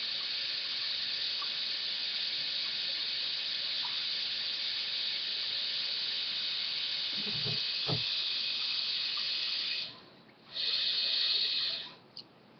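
Water running from a tap into a container being filled, in a steady hiss. The tap is shut off about ten seconds in and then run again briefly for about a second and a half. There are two low knocks a little before it stops.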